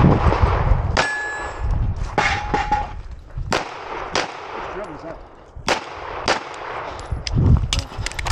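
Canik Rival 9mm pistol fired in a string of spaced shots, about seven in eight seconds. Steel targets ring out after the hits about one and two seconds in.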